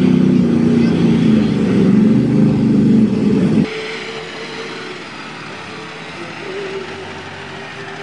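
Dodge mega truck's Cummins diesel engine revving hard, loud for about three and a half seconds, then dropping off suddenly to a quieter, steadier engine sound.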